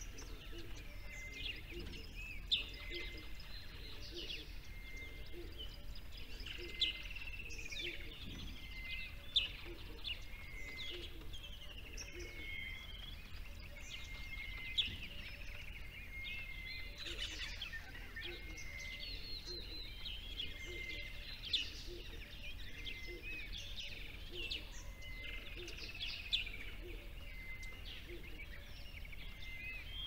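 Several small birds chirping and singing together in a continuous chorus of short high chirps and whistles, with one recurring note, over a steady low background hum.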